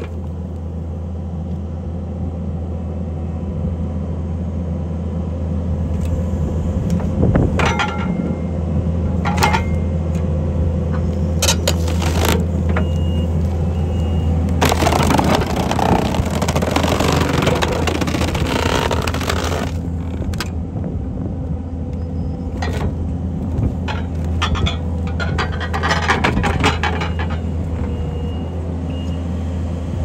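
Skid steer engine running steadily as its hydraulic log splitter forces big rounds through the wedge. Wood cracks sharply several times, with a longer stretch of splintering and crackling in the middle as a round splits apart.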